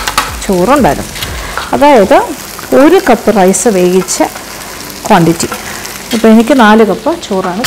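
Rice sizzling as cooked basmati rice is tipped into a hot wok of tomato-chilli masala, under a loud wavering melody in short phrases.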